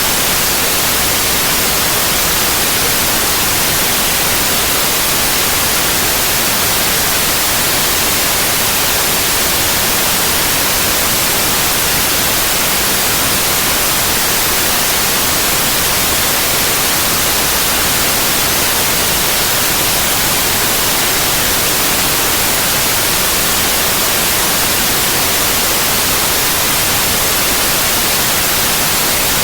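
Steady white noise: an even, unchanging hiss spread across the whole range, strongest in the highs.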